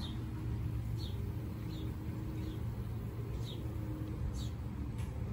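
Steady low mechanical rumble, like a vehicle running, with a small bird giving short high chirps about once a second.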